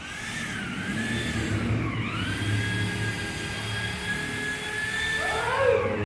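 A steady mechanical whine: a machine or air tool running at high speed. Its pitch dips about one and two seconds in, then holds level, and a lower tone sweeps up just before it cuts off abruptly.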